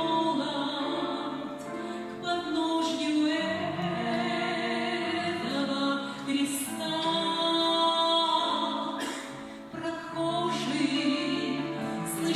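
Singing: a song sung in long held notes with vibrato.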